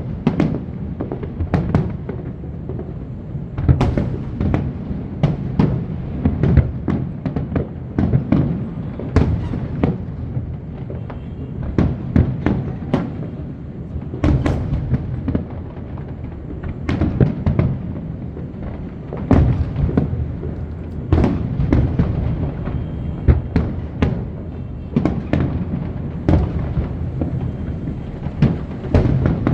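A fireworks display: a steady run of sharp bangs and crackles at irregular intervals, with music underneath.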